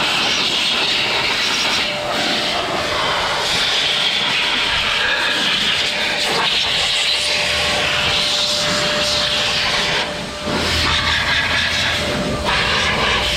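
Electric Arrma RC trucks running on wet ground, heard as a steady hiss with a faint constant whine. The sound dips briefly about ten seconds in.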